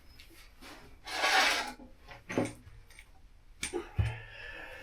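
Workshop tool handling: a loud rasping scrape about a second in, then a few sharp metallic knocks and a dull thud near the end, from work on a motorcycle's chain adjusters.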